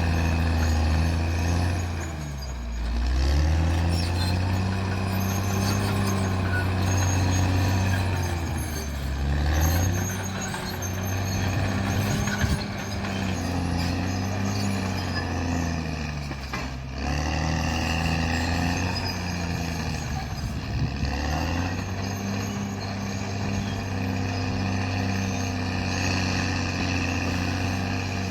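Caterpillar D6R bulldozer's diesel engine working under load, its revs sagging and climbing back several times as it pushes.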